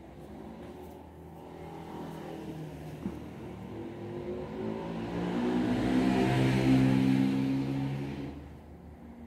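A motor vehicle passing by, its engine growing louder to a peak about six to seven seconds in, then fading away.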